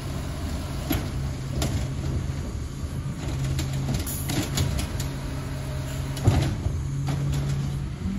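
Autocar ACX refuse truck with an Amrep HX-450 automated side-loader arm at work: the engine and hydraulics run with a steady drone while the arm grabs, lifts and dumps a recycling cart. Several clanks and knocks from the cart and arm stand out, the loudest about six seconds in.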